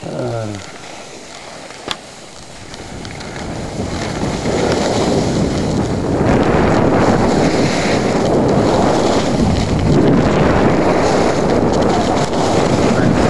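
Wind buffeting a chest-carried camera's microphone while skiing downhill, building over the first several seconds as speed picks up and then staying loud and steady.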